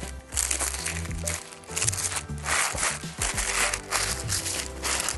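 Paper wrapping crinkling in handfuls as it is unfolded and pulled back, over background music with steady low notes.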